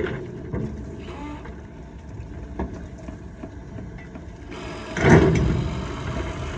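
A heavy engine runs steadily at a low rumble. About five seconds in, a louder rush of noise swells up and fades away over a second or so.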